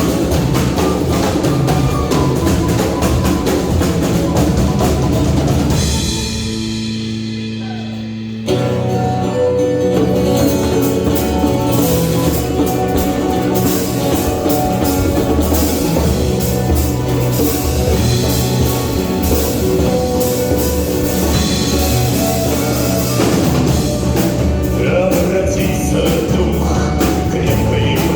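Live rock band playing with a drum kit. About six seconds in the drums drop out, leaving a held chord that fades for about two seconds; then the full band crashes back in.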